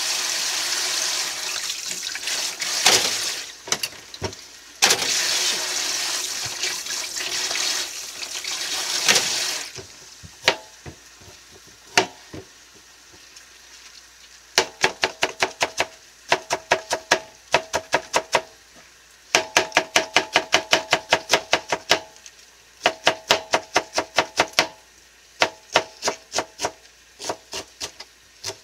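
Tap water running into a sink for about the first ten seconds, with a few knocks. Then a kitchen knife shreds cabbage on a plastic cutting board: quick runs of chopping strokes, several a second, broken by short pauses.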